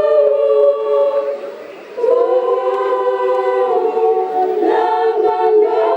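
A choir singing long held chords. The phrase fades out about one and a half seconds in, and a new sustained chord begins about two seconds in.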